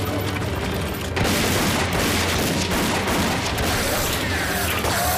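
Battle sound effects: a dense din of explosions and gunfire over a steady low rumble, getting louder about a second in.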